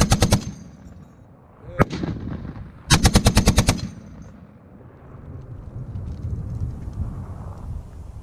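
Browning M2 .50-calibre heavy machine gun firing short bursts. The tail of a burst cuts off just after the start, a single report comes a couple of seconds in, and a burst of about ten rounds lasting roughly a second follows about three seconds in.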